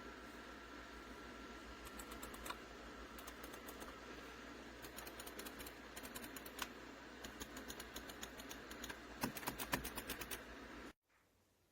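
Irregular clicking of computer keys or buttons, like typing, over a steady background hum, with a quick flurry of clicks near the end. The sound cuts off suddenly about eleven seconds in.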